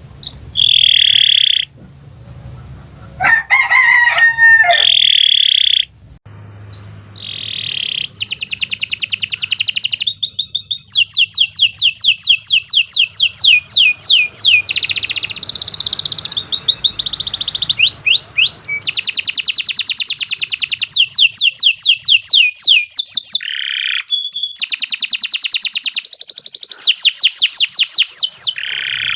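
Domestic canary singing a long, continuous song: drawn-out high whistled notes, then long fast trills of rapidly repeated notes. A lower, wavering call sounds about three to five seconds in.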